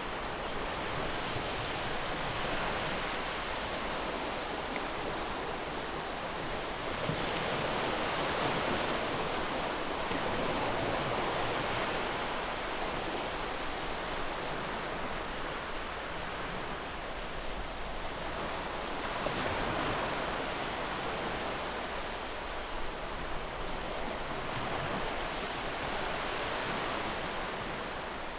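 Ocean surf: a steady wash of waves, swelling louder now and then as waves break.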